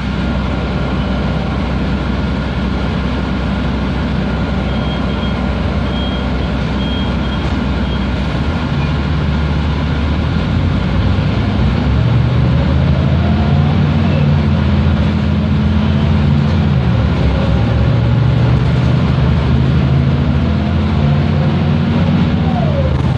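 Mercedes-Benz O405G articulated bus heard from inside the cabin while under way: a steady diesel engine drone and road noise. From about ten seconds in the engine works harder, its note climbing and then dropping back twice.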